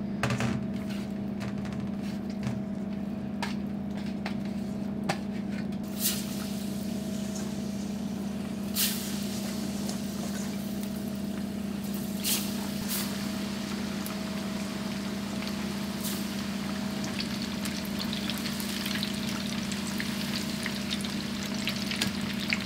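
Starch-dusted pieces of yellowtail deep-frying in hot oil: the sizzling starts about six seconds in as pieces go into the pot and grows busier toward the end, with a few short clinks. A steady low hum runs underneath.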